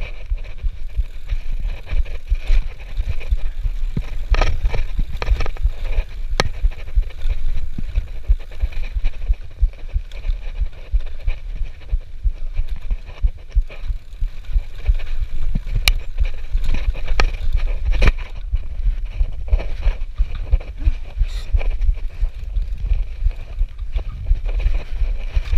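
Mountain bike riding over a bumpy dirt singletrack: a steady low rumble of wind and ground shocks on the camera's microphone, with sharp clicks and rattles from the bike over bumps.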